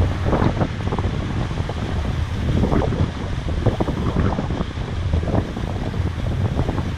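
Strong wind buffeting the microphone of a sailing yacht under way in a fresh breeze, in irregular gusty rumbles, over the rush of water along the hull.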